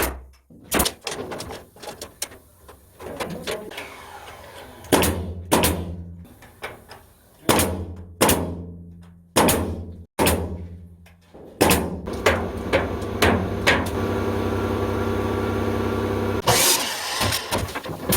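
Interior carpentry work: a series of sharp knocks and bangs at irregular intervals, with a machine motor humming steadily for about four seconds in the second half.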